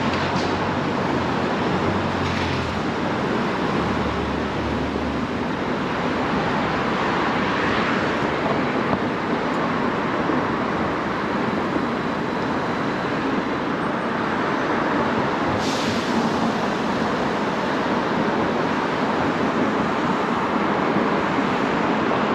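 Steady traffic noise from a busy city street, with a brief hiss about two-thirds of the way through.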